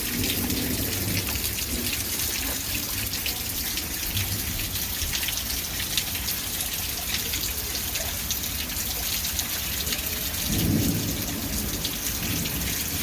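Steady rain falling, with many separate drop hits over an even hiss. A brief low rumble comes about ten and a half seconds in.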